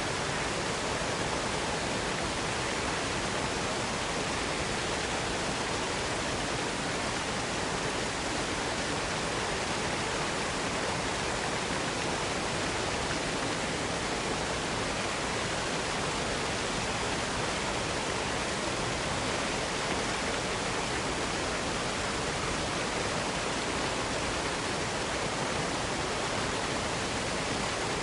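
Waterfall: water cascading in a steady, even rush with no change.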